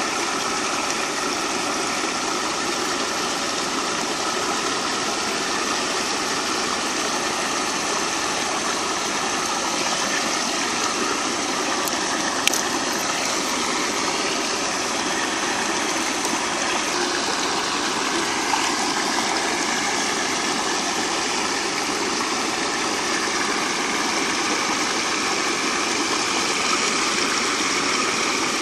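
Steady rush of muddy river water pouring through and over a bamboo-slat fence weir, with a single sharp click about twelve seconds in.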